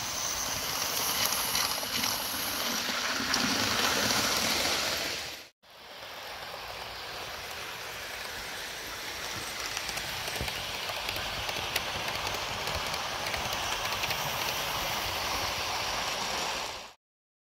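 Steady hissing rumble of Hornby model trains running along outdoor track, with a few faint clicks from the wheels. The sound drops out for a moment about five seconds in, then carries on until it stops short near the end.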